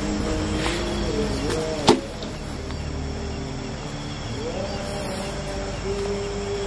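Night insects trilling steadily in high thin tones, with lower wavering tones underneath and one sharp click about two seconds in.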